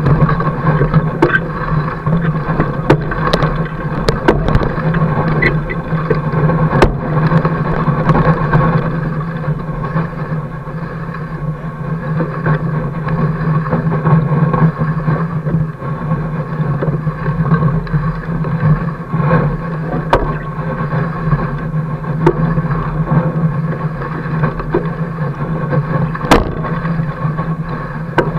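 Fat bike's wide tyre rolling over snow, picked up through the bike-mounted camera as a steady, loud rumble and hum, with a few sharp knocks from bumps along the way.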